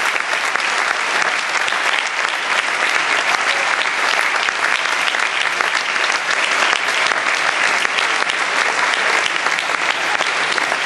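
Concert-hall audience applauding: dense, steady clapping with no break.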